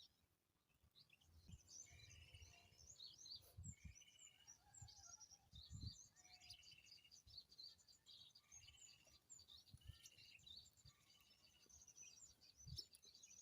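Faint chorus of small birds chirping and twittering, many short high notes overlapping, with a few soft low thumps.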